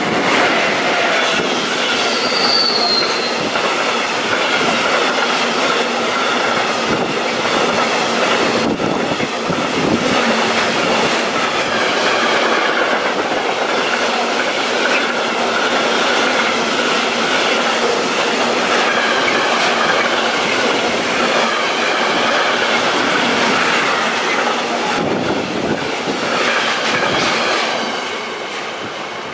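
A long container freight train, hauled by an electric locomotive, passes at speed: a steady rolling din of steel wheels on the rails, with a short high wheel squeal about two seconds in. The noise drops away near the end as the last wagons go by.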